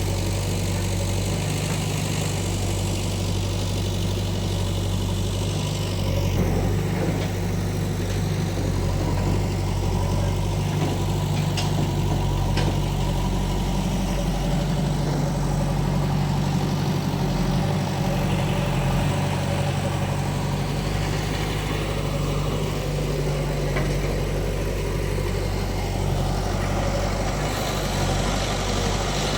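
Heavy diesel engines of a backhoe loader and tractors running steadily at a low, even speed, with a few faint knocks about halfway through.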